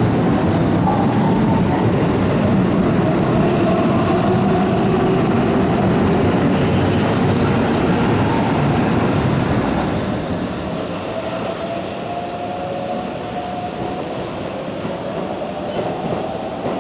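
Keihan 7000-series electric train pulling out and accelerating past: wheels rumbling on the rails, with the traction motors' whine rising slowly in pitch. The noise drops about ten seconds in as the last car passes, and the motor whine keeps rising as the train moves away.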